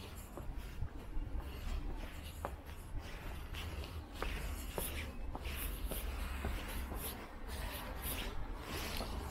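Footsteps of a person walking down stone steps and on across paving: light, short steps about every half second, with a few scuffs. A steady low rumble runs underneath.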